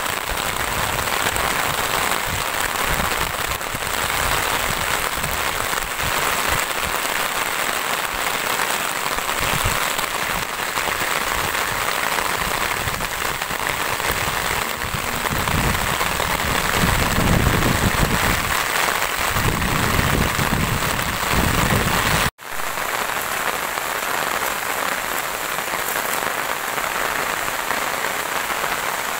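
Steady rain falling on fields and leafy plants, an even hiss. A low rumble swells for several seconds past the middle, and the sound cuts out for an instant a little later.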